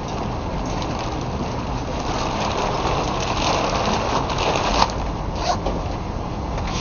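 Steady street noise of city traffic with a low, uneven rumble, and two short sharp clicks about five seconds in.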